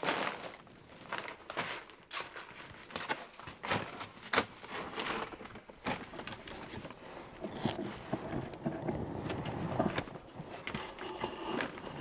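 Handling noise: scattered rustles, scrapes and a few light knocks of hands working thick electrical cable and a fish tape up among wooden floor joists, with a denser spell of rustling in the second half.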